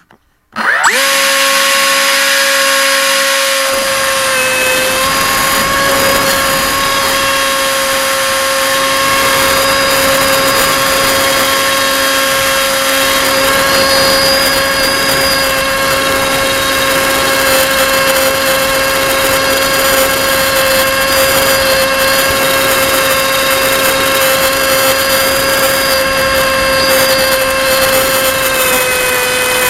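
Bixler 1.1 RC plane's 2620 1900 kV brushless outrunner motor and propeller, heard from the onboard camera. It spins up sharply within the first second, then holds a loud, steady high whine, dipping slightly in pitch twice.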